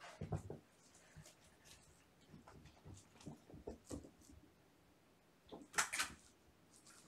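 Kittens playing on and around a cardboard scratcher: scattered soft thuds and scuffles of paws, with a louder scratchy scrabble about six seconds in.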